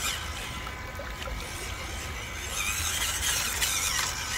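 WPL C24-1 RC crawler's small 180 brushed motor and gearbox whining as the truck drives through mud, growing louder about two and a half seconds in.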